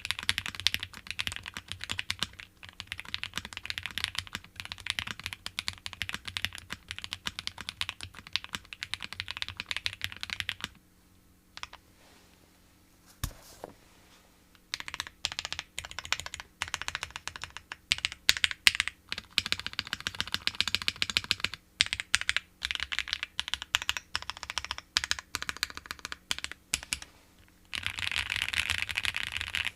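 Typing on a Think6.5 v2 mechanical keyboard: gasket mount, PVC plate, lubed and filmed Silk Yellow switches, GMK Dots keycaps. Steady typing stops about eleven seconds in for a few seconds, broken by a single keystroke, then resumes and becomes fast, dense typing near the end.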